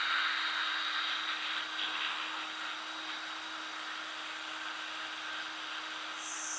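Wire wheel brush spinning on an electric drill, scouring rust and heavy debris off a steel bolt: a steady scratchy hiss over the even hum of the drill motor.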